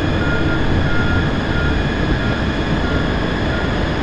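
Jet airliner engines running with a steady roar and several steady high whining tones, neither rising nor falling.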